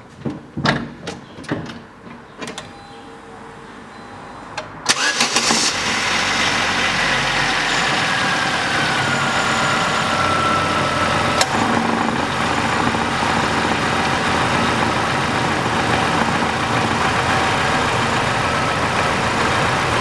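A few clicks and knocks, then about five seconds in the Chevrolet Lanos's 1.5-litre four-cylinder engine is started and settles into a steady idle, with the electric radiator cooling fans running. A whine falls in pitch over the first few seconds of running, and there is a single sharp click about halfway through.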